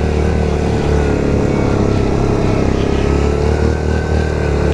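Yamaha Grizzly 700 ATV's single-cylinder four-stroke engine running steadily as the quad rides along a dirt forest trail, its pitch wavering a little and rising slightly near the end.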